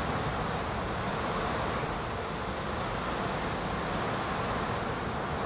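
Steady rushing background noise at an even level, with no distinct clicks, calls or other separate sounds.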